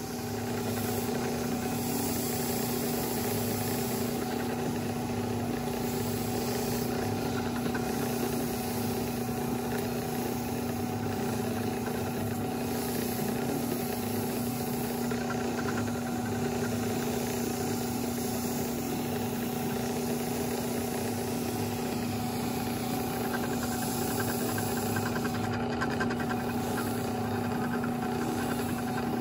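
Craftsman benchtop drill press motor running steadily with an even hum, spinning an engine valve while a gray Scotch-Brite pad is held dry against the valve head, adding a scrubbing hiss.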